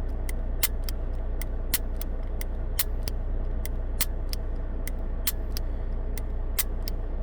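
Sarsilmaz SAR 2000 9mm pistol dry-fired over and over, its double-action trigger pulled repeatedly so the hammer snaps down with a sharp click about three times a second. A steady low hum runs underneath.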